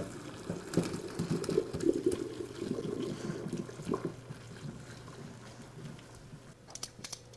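Hot cooking water poured from a stainless steel pot into a colander in a sink, splashing and gurgling as boiled vegetables are drained; the pour tapers off over the last few seconds.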